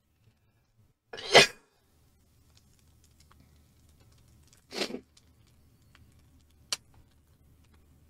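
A man sneezing once, sharp and loud, about a second in, then a softer second burst of breath a few seconds later, and a short sharp click near the end.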